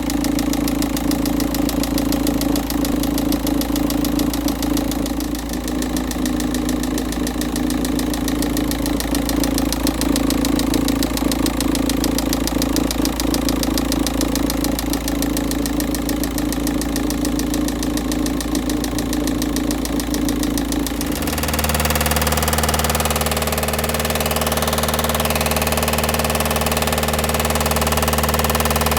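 Volkswagen Touran 1.9 TDI diesel engine idling with a fast, regular heavy knock from inside the engine, a knock that gets louder as the oil warms and thins. About two-thirds of the way through, the sound changes suddenly: the rapid knocking stops and a smoother, steady engine hum is left.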